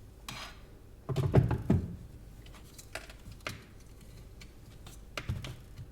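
A plastic spoon knocking and scraping against a hardened block of frozen chocolate in a dish: a quick run of several knocks about a second in, then a few single taps.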